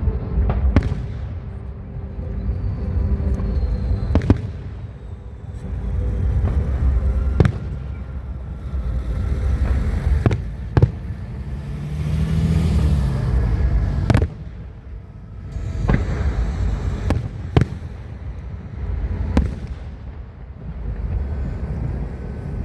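Aerial fireworks display: a dozen or so sharp shell bursts at uneven intervals over a continuous low rumble that swells and fades.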